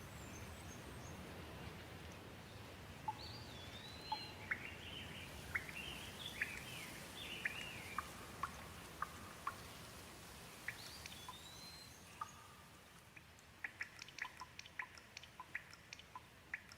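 Light rain falling as a soft, steady hiss, with a bird calling over it: a string of short chirps and whistles from about three seconds in to about twelve. Near the end comes a quick run of sharp ticks.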